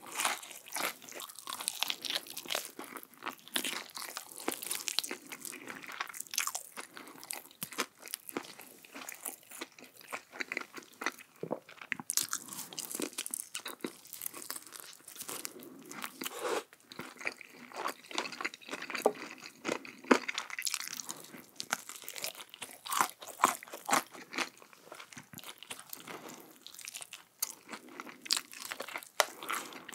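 A person biting and chewing crunchy food close to the microphone: dense, irregular crackling crunches with no break.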